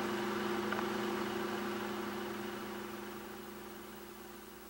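A steady low hum with two even tones, fading out gradually over the few seconds.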